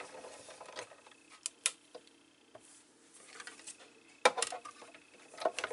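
Big Shot die-cutting machine being loaded and run, its plastic cutting plates and platform giving a handful of scattered sharp clicks and knocks.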